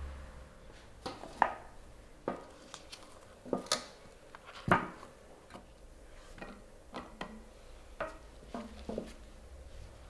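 Hard parts, metal by the sound of it, knocking and clinking as they are handled and set down, in about a dozen irregular taps. Several leave a short ring, and two louder clanks come about a second and a half and nearly five seconds in.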